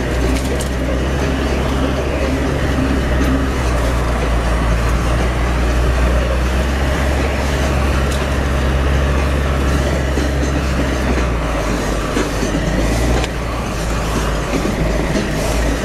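Four-wheel drive vehicle crawling along a muddy track, heard from inside the cab: a steady low engine and drivetrain drone with occasional knocks and rattles from the body over the ruts.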